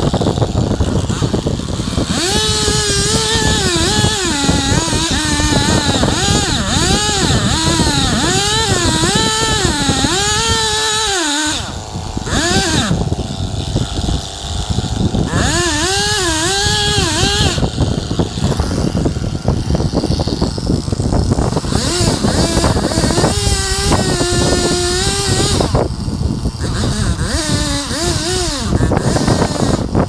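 Gas chainsaw cutting into a maple trunk near its base, its engine pitch rising and falling again and again as it bogs down in the cut and revs back up, with brief pauses.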